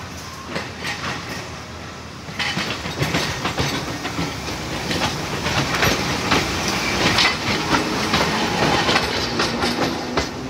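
Okayama Electric Tramway streetcar No. 7102 rolling past at close range, its wheels clicking and knocking over the switches and rail joints of a track junction. The clicks start about two seconds in, come thickest as the car goes by, and ease off near the end.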